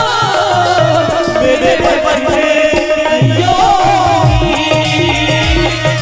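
A woman singing a Maithili folk song live over keyboard accompaniment, her voice amplified through a microphone; her sung line falls away near the start, and low hand-drum beats come in about three seconds in.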